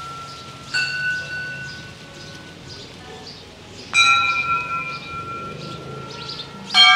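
Brass temple bells struck three times, about three seconds apart, each strike ringing on and slowly fading; the last strike, near the end, is the loudest.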